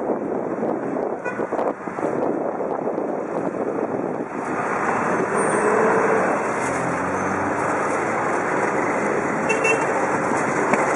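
Busy city street traffic heard from a moving bicycle: a steady din of car and truck engines and road noise that grows louder about halfway through.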